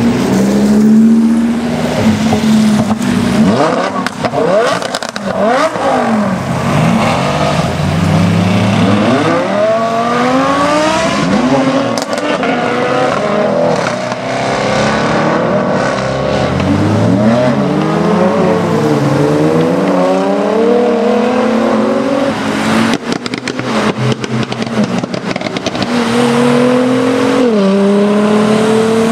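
Sports car engines accelerating hard one after another on a wet road, the pitch climbing through the gears and dropping back at each shift. It starts with a Mercedes-AMG C63 S coupe pulling away.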